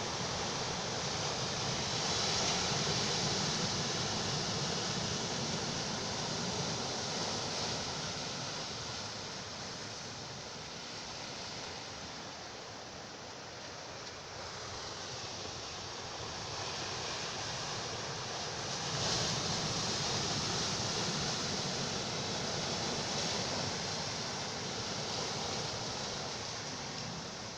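Calm sea waves washing ashore: a steady rush that swells and ebbs slowly, quieter in the middle, with a fresh surge about two-thirds of the way through.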